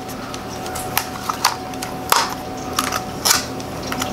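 Handling noise from a folded DJI Mini 2 drone and its foam-lined case: several sharp, irregular plastic clicks over faint rustling.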